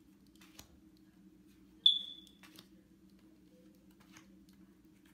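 Tarot cards being dealt onto a cloth-covered table: soft slaps and slides of the cards. A single sharp, bright clink rings out about two seconds in and fades quickly, over a steady low hum.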